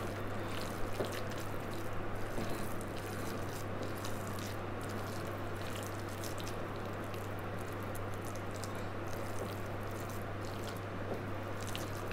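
Hands squishing and kneading a wet dough of grated bottle gourd and beetroot bound with gram flour and jowar flour in a glass bowl: soft, irregular squelching over a steady low hum.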